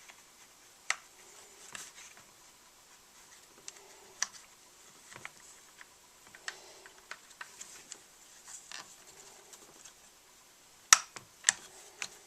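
Scattered light clicks, taps and scratches of plastic parts and wiring being handled and fitted back onto a Husqvarna 55 chainsaw, with three sharper clicks near the end.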